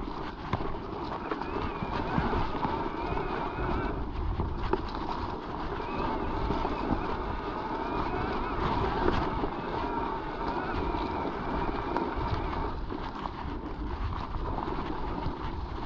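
Mountain bike riding over rough trail: a steady rumble of tyre and ground noise with constant small knocks and rattles from the bike, and wind buffeting the microphone.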